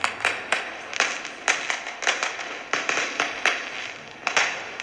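Recording of fireworks played back from a tablet: irregular sharp bangs and crackles, two or three a second.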